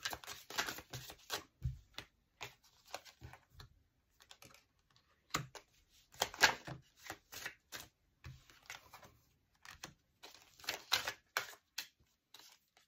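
A deck of oracle cards being shuffled in the hands, in three runs of quick clicks with single clicks between, as cards are drawn from it and laid down.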